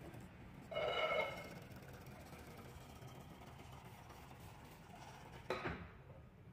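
Dorma automatic sliding door's drive running the door along its toothed-belt track, with a steady low hum, a short whine about a second in, and a sharp knock about five and a half seconds in.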